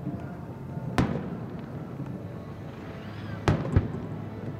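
Aerial fireworks shells bursting: three sharp booms, one about a second in and two in quick succession about three and a half seconds in, each with a short fading tail.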